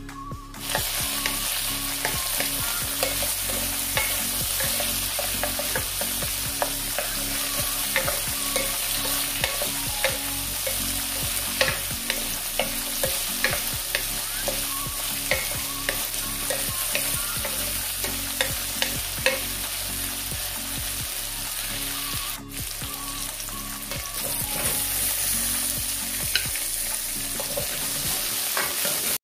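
Food sizzling in a hot pan while a utensil stirs it, clicking and scraping against the pan again and again.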